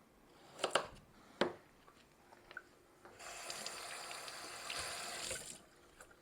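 A few light knocks, then a kitchen tap runs for about two and a half seconds and stops.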